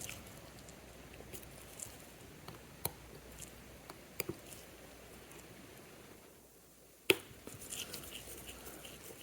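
Faint, scattered small clicks of metal tools handling a tiny mechanical watch movement while the pallet fork is worked loose, with one sharper click about seven seconds in.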